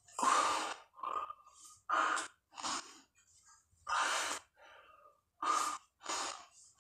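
A man breathing hard with each push-up rep during a long set: about seven short, noisy breaths, gasped in and blown out, with short pauses between them.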